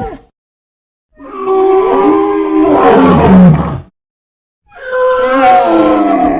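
Cartoon dinosaur vocal sound effect: two long, loud calls with a wavering, bending pitch, the first from about one second in to about four seconds, the second starting near five seconds, each separated by silence. The tail of a previous call fades out at the very start.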